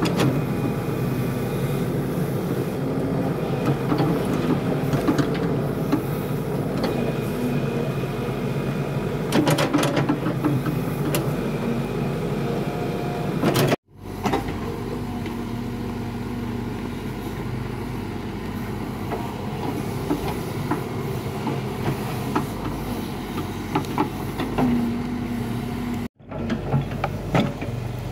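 Hitachi Zaxis excavator's diesel engine running under load, with a hydraulic whine and scattered clanks and scrapes of the bucket working soil. The sound breaks off twice briefly.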